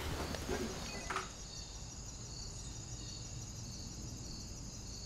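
Brief rustling movement in the first second, then a steady high insect chorus of crickets trilling, pulsing about twice a second.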